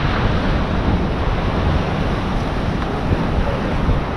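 Ocean surf washing on the shore, with wind buffeting the microphone: a steady, even rush of noise.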